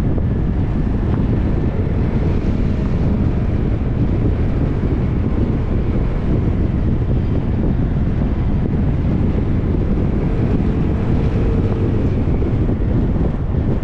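Steady, heavy wind rushing over the microphone on a moving ride, with a faint engine note rising and falling underneath.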